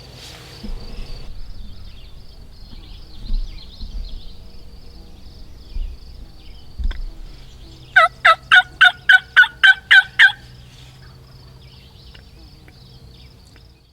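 Wild turkey tom gobbling once: a rapid rattling run of about ten notes lasting about two seconds, over a faint steady high chirring in the background.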